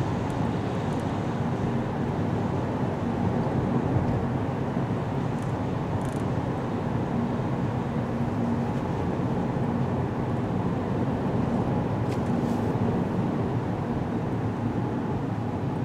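Steady road noise inside a moving car's cabin: tyres on a wet road, with a low, even engine hum.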